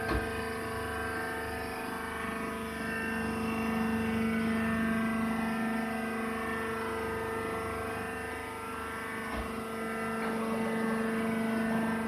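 Hydraulic baling press's power unit (electric motor and pump) running with a steady humming drone.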